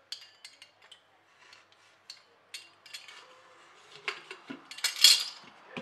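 Light clicks and scraping of a plastic tool against the metal rim of an aluminium steamer basket as excess dough is trimmed off around the edge, getting busier toward the end, with the loudest scrape about five seconds in.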